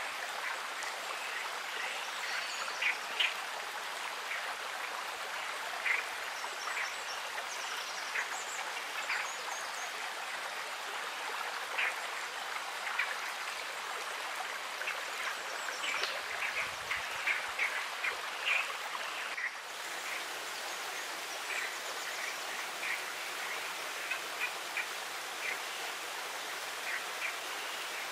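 Stream running steadily, with many short, sharp calls or plinks scattered irregularly over the rushing water. The sound dips briefly about two-thirds of the way through.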